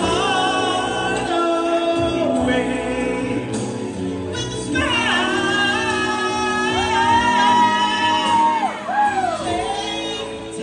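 A solo singer performing with vibrato over sustained musical accompaniment, in a gospel-like style, holding one long high note in the second half before sliding off it.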